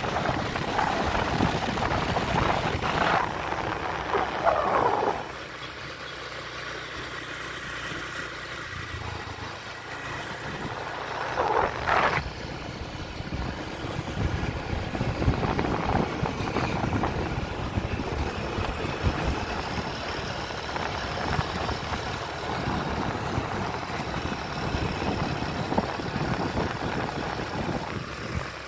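A motor vehicle moving along a road: steady engine and road noise, louder for the first five seconds, with a couple of brief sweeping sounds.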